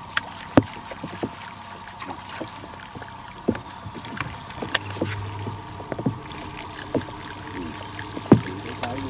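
Handling noise from rod-and-reel fishing on the deck of a bass boat: scattered sharp clicks and knocks from casting and reeling tackle and feet on the deck, over a faint steady hum. A low hum comes in briefly twice, once around the middle and once near the end.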